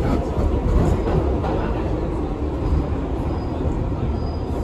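R62A subway car of the New York (1) train running on the rails, a steady rumble.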